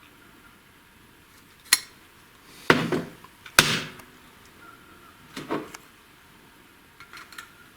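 Steel engine parts, a connecting rod and a measuring gauge, knocking and clinking as they are handled on a workbench. There are four sharp knocks with a short ring after the loudest, then a few light clicks near the end.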